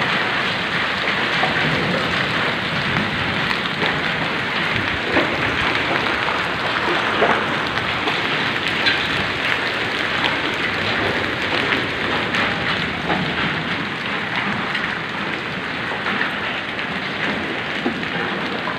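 Hailstorm with heavy rain: a dense, steady patter of rain and hailstones striking the ground, with many small sharp hits and a few louder ones standing out.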